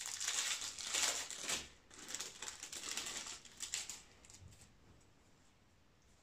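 Packaging crinkling and rustling in the hands as small sew-on patches are unwrapped and handled, in irregular crackly bursts that stop about four seconds in.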